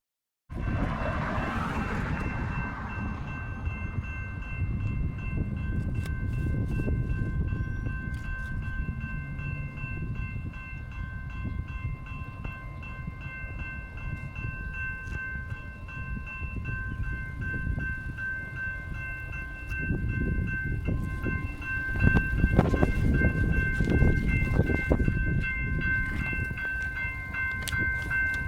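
A train passing, its low rumble running throughout and growing louder around two-thirds of the way in. Several steady high tones sound together above the rumble from a couple of seconds in.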